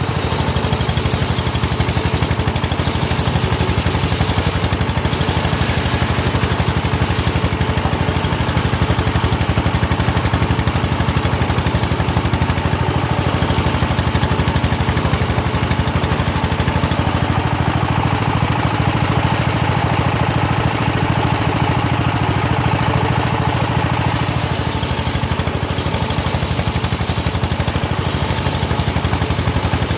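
Engine-driven homemade circular sawmill rig running steadily, its engine firing in a fast even beat, while the blade saws teak. A brighter hiss rises briefly about 24 seconds in.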